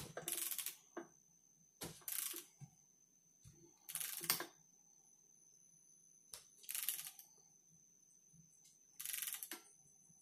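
Ratchet of a click-type torque wrench clicking in short bursts on each return stroke, about every two seconds, as a 13 mm bolt is run down toward the wrench's 21 foot-pound setting.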